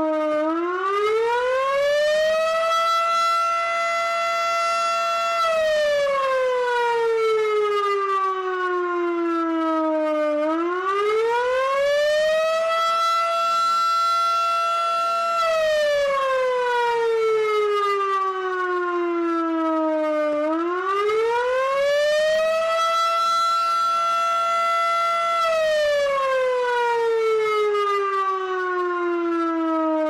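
Federal Signal Model 5A fire siren sounding a wail: its tone rises over a couple of seconds, holds high for about three seconds, then slides slowly down, the cycle repeating about every ten seconds, three times over. Recorded almost directly under the siren, so the sound is loud and clipped.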